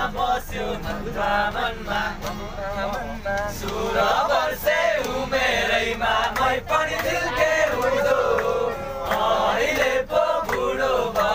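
A group of young people singing together, a chorus of many voices, with a man leading on a strummed acoustic guitar.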